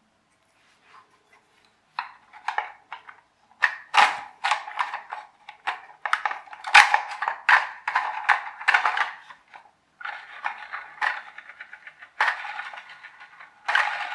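Hard plastic clicking and rattling as a toy tipper truck is handled and a thin metal axle is pushed through the holes in its plastic chassis. It starts about two seconds in and goes on as a quick, uneven run of clicks and taps.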